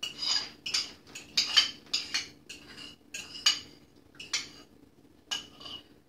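A spoon scraping and clinking against a mixing bowl in about a dozen short, irregular strokes, scooping out thick cream cheese filling.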